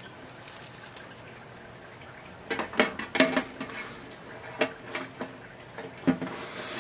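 Turntable cords being unwound by hand after a twist tie is undone: a few light clicks and rustles, starting about two and a half seconds in.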